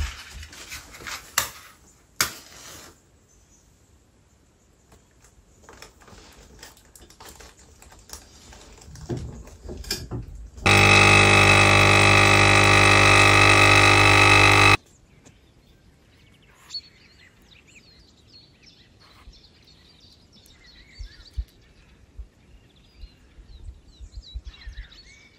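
Capsule coffee machine's pump humming loudly for about four seconds while it dispenses coffee into a mug, starting and stopping abruptly. A few knocks and clicks come near the start.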